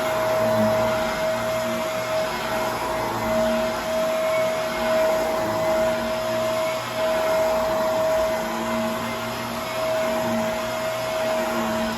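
Vacuum cleaner running with a steady high motor whine over a rushing hum, its sound swelling and easing every second or two.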